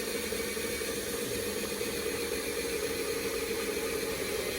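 Power drill running steadily under load while drilling out the rivets on a school bus's sheet-metal panel, with a steady whine; it stops abruptly at the end.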